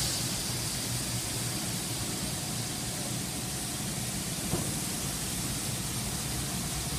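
Steady mechanical din of feed pellet plant machinery running, a level noisy hum with no changes, and a single faint knock about four and a half seconds in.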